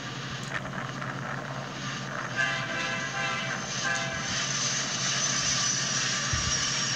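Approaching diesel freight train, a Norfolk Southern double-stack led by Union Pacific locomotives, its rumble growing steadily louder. A steady tone of several notes sounds for about two seconds near the middle, and a thin high tone joins in toward the end.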